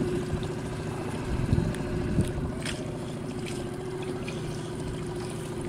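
Small boat's outboard motor running steadily at an even pitch, with wind on the microphone.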